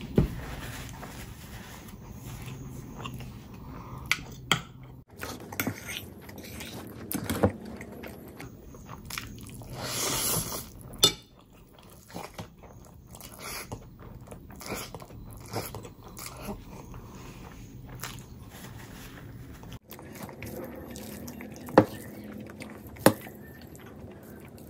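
Close-miked eating: a person chewing and biting food, with wet mouth noises and a few sharp clicks and taps, one swell of noise about ten seconds in.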